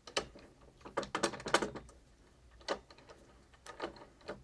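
Bicycle parts and tools clicking and knocking as they are handled during crank and bottom bracket removal: irregular sharp clicks, with a quick cluster about a second in and lighter taps near the end.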